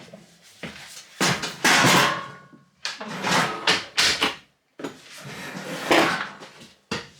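A run of wooden handling noises, sliding, knocking and clattering like cabinet drawers and doors being worked, in several separate bursts with a short squeak among them.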